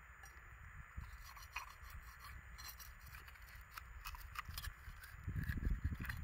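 Steel rebar bar prying at oyster shells stuck to rock: a scatter of small scrapes and clicks of metal on shell, with low rumbling near the end.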